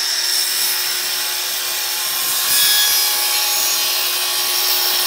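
Table saw running at speed, its blade cutting through a glued-up hardwood strip board fed on a sled; the sound gets a little louder about halfway through.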